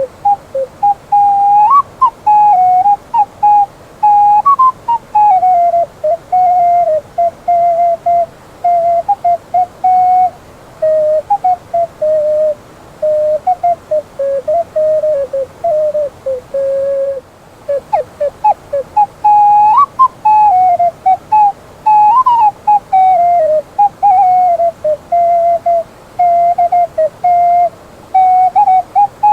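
Ocarina playing a slow solo melody of clear, flute-like single notes, with a short break about 17 seconds in before the opening phrase comes back.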